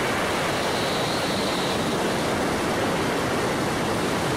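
Steady rush of wind and road noise from a car travelling at about 65 miles an hour, picked up just outside its side window.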